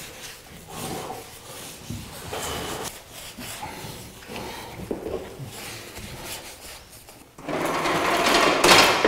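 A paintbrush scrubbing and scraping wet paint, in irregular strokes. About seven and a half seconds in it turns into a louder, continuous scrubbing that lasts to the end.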